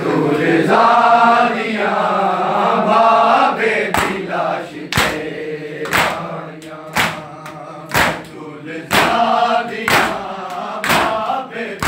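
A group of men chanting a noha (Shia lament) together. From about four seconds in, they beat their bare chests in unison (matam), one sharp slap about every second, and the chant carries on between the slaps.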